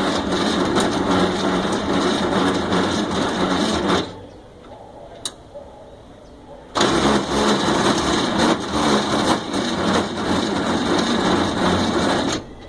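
Volkswagen Kombi engine running with a strange noise in it, a dense run of fast ticking or rattling over the engine sound. It cuts off abruptly about four seconds in, comes back about seven seconds in, and cuts off again just before the end.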